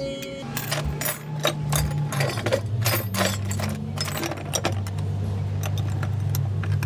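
Honda CB360 parallel-twin engine running, a steady low drone with a busy mechanical clatter and ticking over it; the drone sets in about half a second in.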